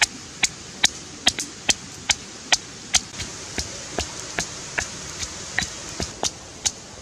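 Stone pestle pounding red chillies in a stone mortar: sharp knocks in a steady rhythm, about two and a half a second, quieter for a few seconds in the middle.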